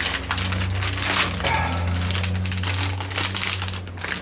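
Clear plastic packaging bag crinkling and crackling as it is handled and a boxed item is slid out of it, over a steady low hum.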